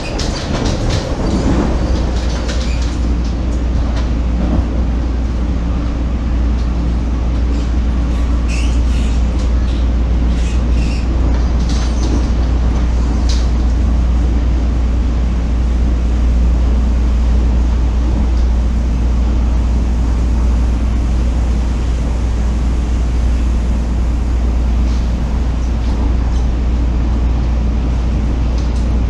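Cabin noise of an MTR East Rail Line MLR electric multiple unit (refurbished Metro-Cammell stock) running between stations: a loud, steady low rumble of wheels on rail and running gear. A few brief high squeaks or clicks come about a third of the way through.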